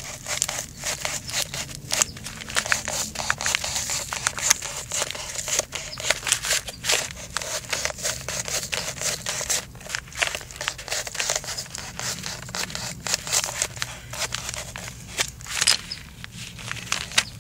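Pleated paper element of a spin-on oil filter crackling and tearing in irregular bursts as a hand tool cuts and pulls the paper loose at its metal end cap.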